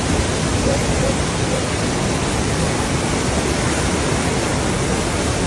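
Swollen, fast-flowing floodwater rushing in a loud, steady, unbroken roar of water.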